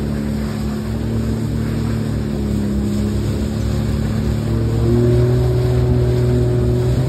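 Sea-Doo GTI personal watercraft engine running under way, a steady hum whose pitch rises a little about five seconds in, over the rush of wind and water past the hull.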